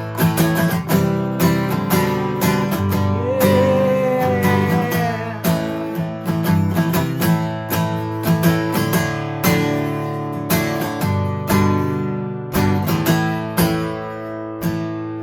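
Acoustic guitar strummed in a steady rhythm, playing chords through an instrumental break in the song. It grows quieter near the end.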